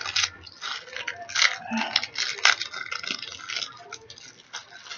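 Crinkling and rustling of small packaging being handled and opened by hand, with a sharp click about two and a half seconds in.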